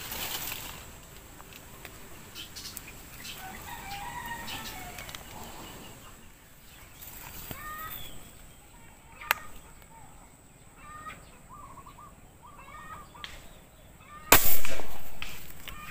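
Birds chirping in the background, with a sharp click about nine seconds in. Near the end comes a sudden loud rush that fades over about a second and a half: the tiksay, a projectile on a line, being shot at a fish.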